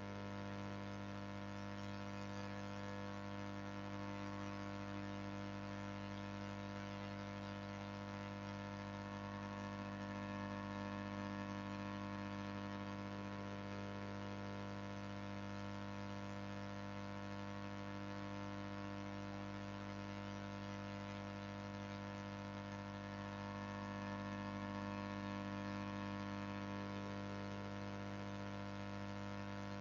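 Steady electrical mains hum and buzz, a low drone with many fixed overtones and faint hiss, unchanging throughout.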